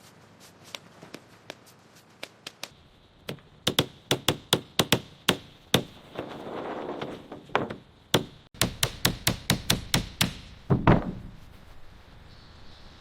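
Construction work: a long run of sharp knocks and taps. A few come spaced out at first, then they come thick and fast from about three and a half seconds in, with a loud strike near the end.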